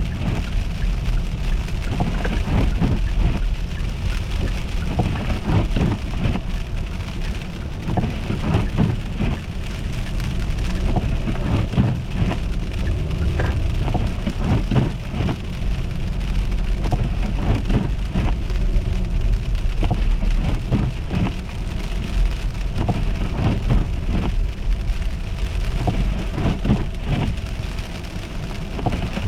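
A car driving over an icy, snow-covered road: a steady low road rumble with irregular crackling and crunching from the tyres on ice and slush.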